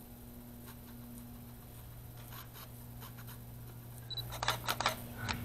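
Handheld digital SLR camera: faint handling clicks, then about four seconds in a short high electronic beep as the autofocus confirms, followed by a quick run of sharp shutter clicks.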